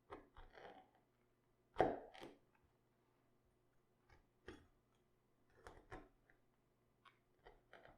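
Knife cuts and knocks on a cutting board during food prep: scattered single strokes in small clusters, not a steady chopping rhythm. The loudest comes about two seconds in.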